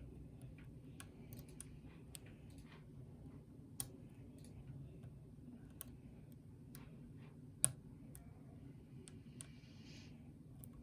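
Faint, irregular metal clicks and taps of a lock pick working the pins of a pin-tumbler lock cylinder under tension, with a sharper click about 4 seconds in and a louder one at about 7.5 seconds.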